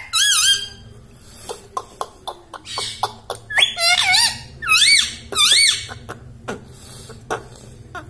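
Rose-ringed parakeet giving high, squeaky calls that dip and then rise in pitch, about five in all: one just after the start and four close together from about three and a half seconds in, with short clicks between them.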